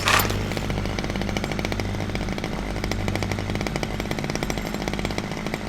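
Chainsaw running at high speed, starting with a sharp loud burst and then a steady, fast buzz.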